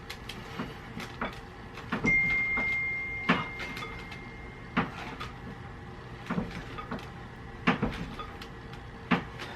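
Scattered light knocks and clicks, a few a second at most, with a faint steady high tone that starts about two seconds in and lasts a couple of seconds.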